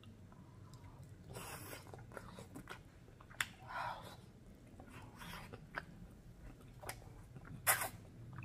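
Close-up eating sounds of a person eating saucy black bean noodles: wet chewing and sharp lip smacks, with several short slurps as noodle strands are sucked in, the loudest near the end.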